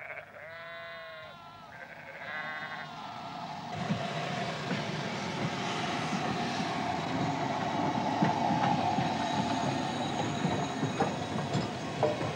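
A sheep bleats twice in the first three seconds. Then a steam locomotive and its train come past on the rails, growing louder, with a steady high tone over the running noise and a few sharp clicks near the end.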